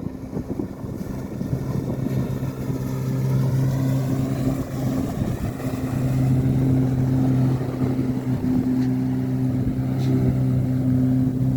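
Jet ski engine running steadily over a wash of water and wind noise, its hum getting louder about six seconds in.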